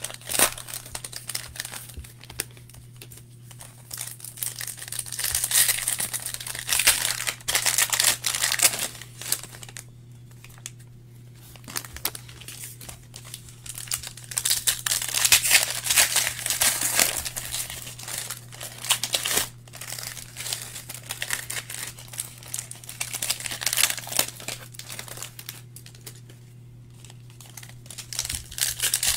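Foil wrappers of Panini Donruss Optic basketball card packs being torn open and crinkled by hand, in bursts with short pauses between, over a steady low hum.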